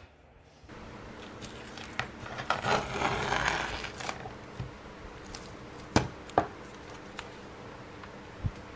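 Stretched canvas being handled on a wooden tabletop: a rubbing, scraping shuffle a few seconds in, then two sharp wooden knocks about half a second apart, over a steady room hiss.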